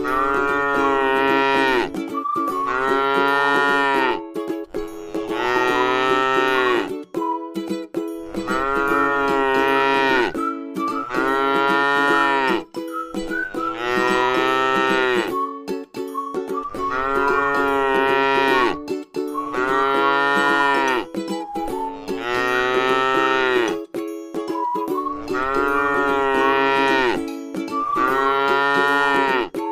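Cow mooing over and over in an even, repeating rhythm, about one long moo every two seconds, over a steady held tone.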